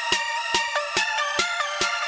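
Electronic dance music with a steady beat of about two and a half strikes a second over sustained synth chords.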